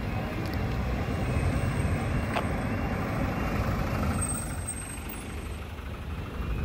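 A panel van driving past on a wet road, its engine and tyres making a steady rumble as it comes up and goes by close at hand.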